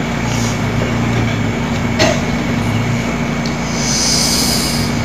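Steady hum and hiss with a constant droning tone, like an open sound system in a pause between recited verses, with one sharp click about two seconds in and a breathy hiss near the end.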